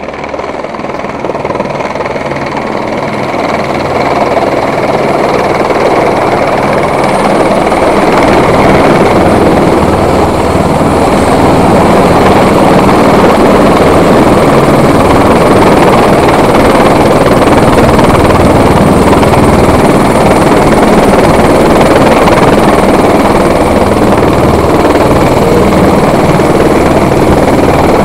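Eurocopter AS350 B3 Ecureuil helicopter hovering very close, its main rotor and turbine very loud as it hovers low over a water tank to fill its firefighting bucket. The sound grows louder over the first ten seconds or so as the helicopter comes in, then holds steady.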